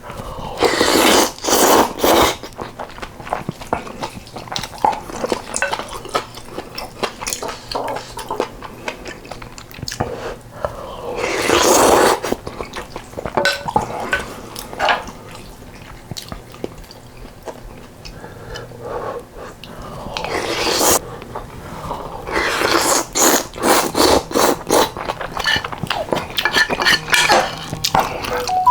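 Close-up eating sounds of spicy beef soup with rice and kimchi: three loud slurps of about a second each, chewing, and utensils knocking on the bowl, with a quick run of clicks and chewing near the end.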